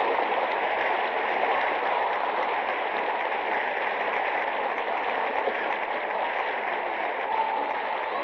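A theatre audience applauding steadily on a muffled, narrow-band live tape recorded from among the seats.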